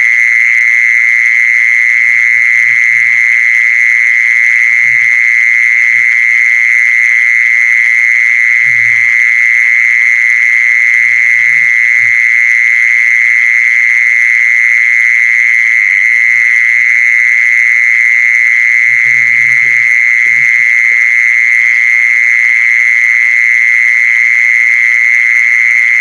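A loud, unbroken high-pitched trill held at one pitch throughout, with a few faint low knocks now and then.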